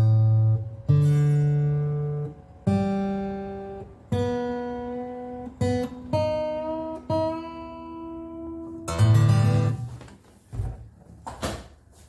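Taylor 214CE steel-string acoustic guitar being played after its neck reset and action setup: single strummed chords struck one at a time, about every one and a half seconds, each left to ring out. The playing ends in a few short muted strokes.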